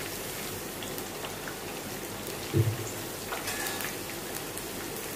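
Batter-coated cauliflower florets deep-frying in hot mustard oil in a kadai: a steady crackling sizzle, with a single dull knock about two and a half seconds in.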